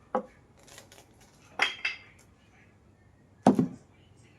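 Four short, sharp clinks of hard objects knocking together: one just after the start, two close together at about a second and a half, and the loudest about three and a half seconds in.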